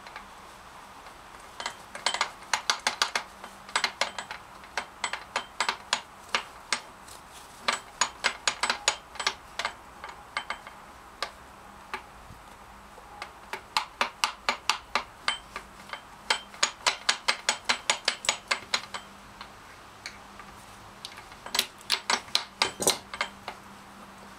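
Aprilia Caponord 1000 gearbox being turned over by hand, giving quick runs of sharp metallic clicks with short pauses between them. The owner takes this for a faulty gear-shift fork, perhaps broken off or with a snapped spring.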